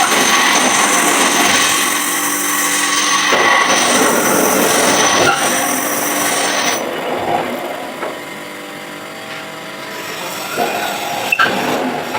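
Manual lathe running while cutting a thread: a steady high whine under scraping noise. The noise drops away about seven seconds in, leaving a quieter hum, and a sharp click comes near the end.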